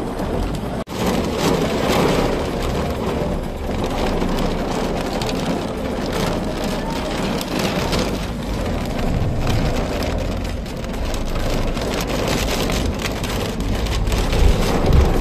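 Heavy rain falling steadily and pattering on a hard surface.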